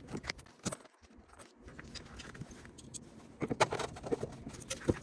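Light clicks and taps of a screwdriver working the screws of a cabinet hinge, with a cluster of clicks about three and a half seconds in and a sharper knock near the end.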